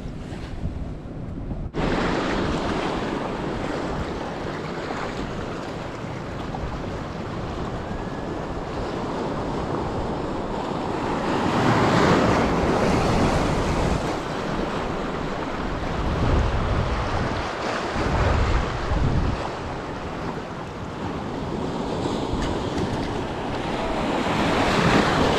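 Ocean surf breaking and washing in, with wind buffeting the microphone. The surf comes in abruptly about two seconds in and swells louder about halfway through and again near the end, with low wind gusts in between.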